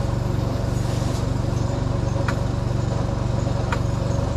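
A motor runs steadily with a low, evenly pulsing drone. Two light clicks come about halfway through and again a second and a half later, while the motorcycle jack is being let down.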